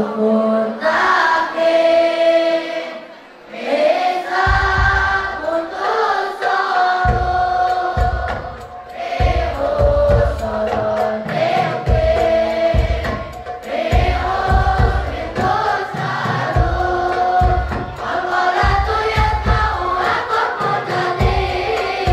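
A large group of boys chanting Arabic verse in unison into microphones, a sung, melodic recitation. From about four seconds in, a low thumping beat recurs under the singing.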